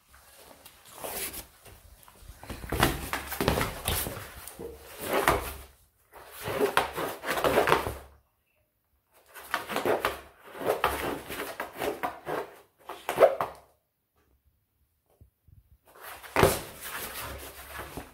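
A whippet puppy scratching and tearing at a flat sheet of corrugated cardboard with paws and teeth, the cardboard scraping and rustling against the floor. It comes in three bursts with short silences between them.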